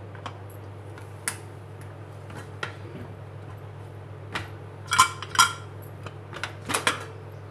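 Aluminium Prestige pressure cooker being opened after its steam has been let out: scattered metal clicks from its weight and lid, then louder ringing clanks in pairs about five and seven seconds in as the lid is worked free. A steady low hum runs underneath.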